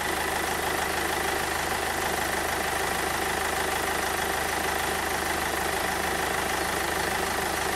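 Car engine idling steadily while the alternator is loaded by the headlights, air conditioning and heated rear screen.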